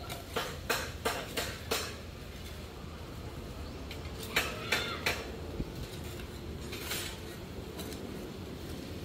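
Metal shovel blade striking and scraping stony, sandy soil: five sharp clinks about a third of a second apart in the first two seconds, then three more about halfway through.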